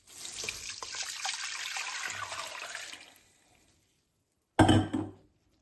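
Ginger and turmeric juice being poured into a container for about three seconds, then a short, loud clunk about a second and a half later.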